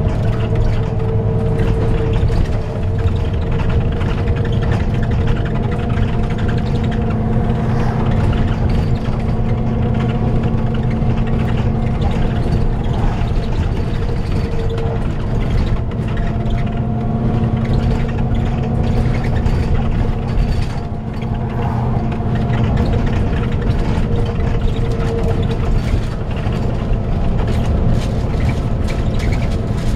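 Volvo B9TL double-decker bus driving along, heard from inside the saloon: its engine running with the engine cooling fan giving a steady hoover-like whir over the road rumble. Some of the whining tones fade in and out as the bus drives.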